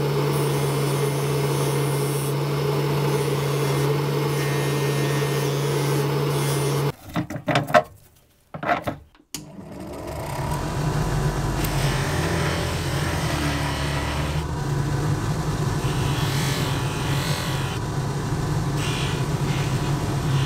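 A bench polishing motor runs steadily, spinning a buffing wheel while a small watch part is pressed against it. About seven seconds in, the sound breaks off with a few clicks and goes nearly silent for about two seconds. Then the motor and wheel run again with a rougher rubbing sound.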